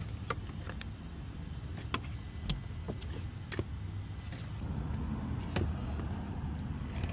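Plastic dash trim panel being pried off with a screwdriver, its pop clips and the tool against the plastic giving about half a dozen sharp clicks and snaps, over a low steady rumble.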